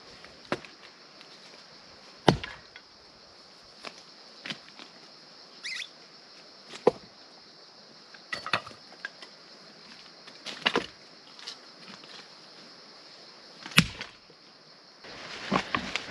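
Firewood being split by hand: about nine sharp chopping blows at irregular intervals, the loudest about two seconds in and near the end.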